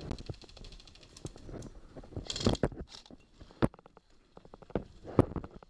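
Airsoft gun firing a rapid full-auto burst of clicking shots for about a second and a half, followed by scattered sharp knocks and rustling of gear.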